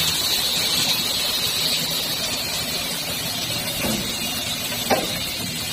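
Automated aluminium-profile drilling, tapping and cutting machine running: steady mechanical noise with a high-pitched band, a faint knock about four seconds in and a short sharp squeak that falls in pitch near the five-second mark.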